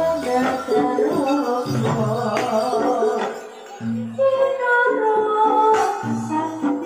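Live Javanese gamelan music accompanying a barongan dance: a stepped melody over low drum strokes and sharp percussion hits, with a woman singing.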